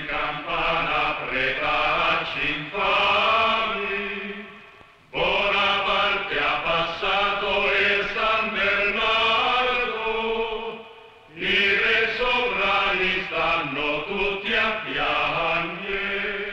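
Voices singing a chant-like melody in three long phrases, each fading out before the next begins.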